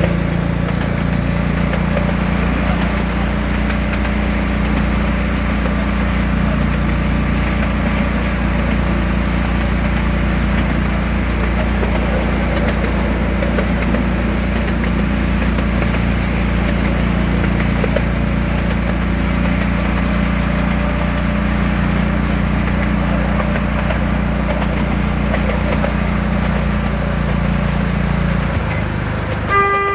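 Engine of a miniature railway Hymek-style locomotive running steadily as it hauls the train. Its note eases near the end, and a short horn toot sounds at the very end.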